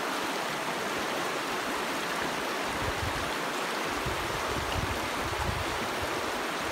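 Shallow, fast stream rushing over rocks in white-water rapids: a steady, even rush of water.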